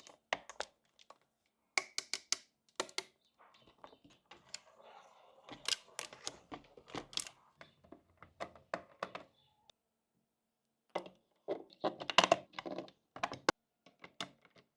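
Small plastic toy kitchen pieces being handled and set down: a run of irregular sharp clicks and taps, with a short stretch of soft rustling about a third of the way in and a pause of about a second two-thirds of the way in.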